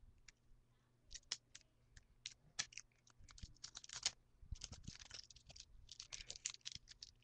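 Faint, irregular clicking and rustling of small hard objects being handled and rummaged through, busiest in the second half.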